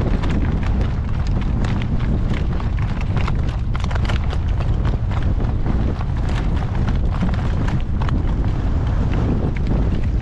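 Strong gusting wind buffeting the microphone, with a horse's hooves clip-clopping steadily underneath.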